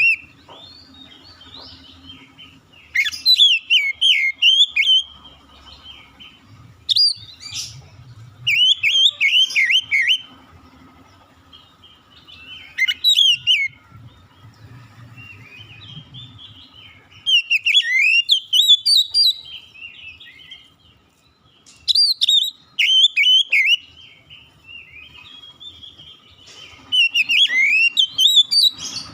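Oriental magpie-robin (kacer) singing: about seven short phrases of quick, sweeping whistled notes, each a second or two long, with pauses between.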